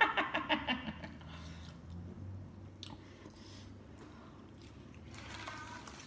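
A short laugh dies away in the first second, then a woman chews a mouthful of leafy vegetables, with faint, irregular mouth and chewing sounds.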